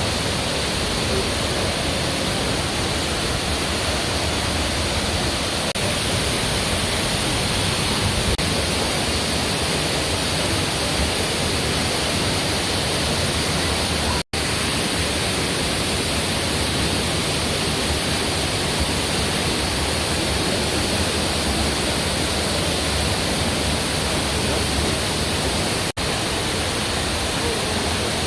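Waterfall rushing steadily, a continuous even wash of falling water. It cuts out for an instant about halfway through and again near the end.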